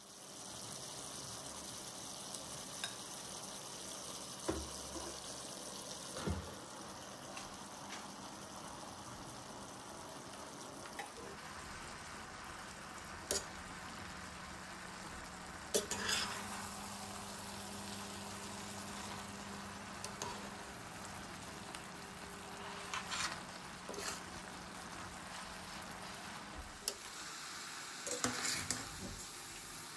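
A chicken, vegetable and ramen noodle stir-fry frying in a stainless steel pot as it is stirred and tossed with a metal utensil. A steady frying sound runs under occasional sharp clinks and scrapes of the utensil against the pot.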